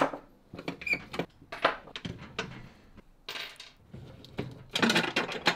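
Small steel bolts and nuts clinking onto a wooden workbench, then a series of clicks and a short clatter near the end as battery terminal hardware is undone and handled.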